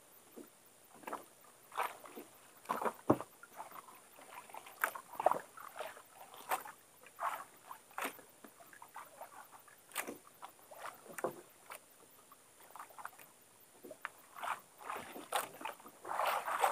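Quiet, irregular slaps and light knocks of water against the hull of a small fishing boat at sea, coming a few times a second over a faint hiss.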